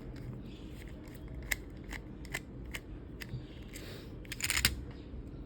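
Small screwdriver turning a screw out of a plastic toy pistol's housing: a scatter of light clicks and ticks, with a brief louder cluster of clicks near the end.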